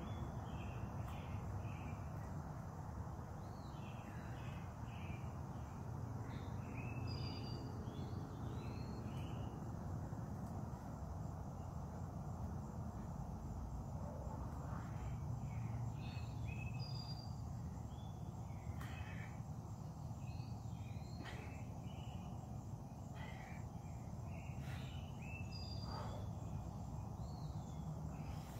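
Outdoor ambience of songbirds singing short, repeated chirping phrases, over a steady low rumble and a faint steady high hiss such as insects make.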